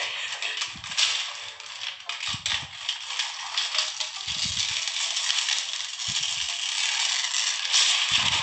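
Sheet of baking paper being slowly torn through by hand, a continuous crackling rustle of paper, with a few dull low thumps along the way.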